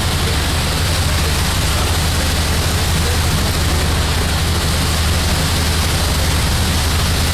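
A steady, loud, low engine drone under an even rush of churning wake water and wind. It does not rise or fall.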